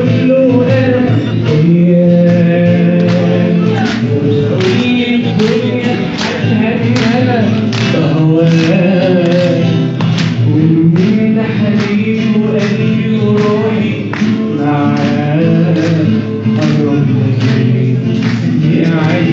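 Live music: a man singing a melody into a microphone over a strummed guitar accompaniment.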